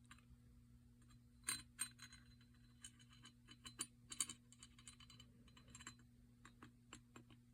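Faint, scattered light clicks and taps of small metal parts being handled while grease is put on a hand drill's crank, over a low steady hum.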